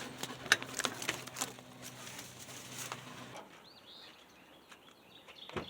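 Scattered clicks and light knocks of hands and tools on metal trim, over a steady low hum that cuts off about three and a half seconds in. Then birds chirp faintly, with one dull thump near the end.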